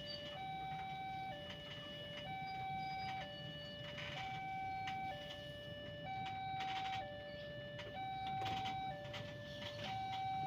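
Railway level-crossing alarm sounding two electronic tones, a higher and a lower one, alternating about once a second, over the low rumble of passenger coaches rolling slowly past. Now and then a wheel clacks over a rail joint.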